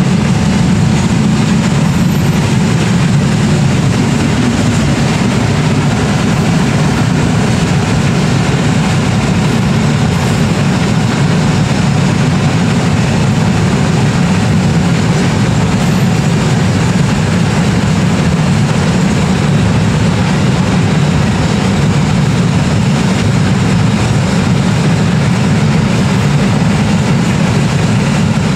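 KAI CC 206 diesel-electric locomotive running as it hauls a train of flat wagons, a steady low drone that holds level throughout.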